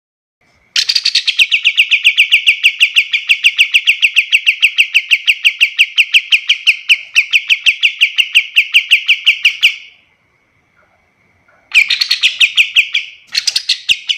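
Kapas tembak bulbul singing a fast, rapid-fire run of short repeated chirps, about nine a second, for roughly nine seconds. It pauses briefly, then fires off two shorter runs near the end.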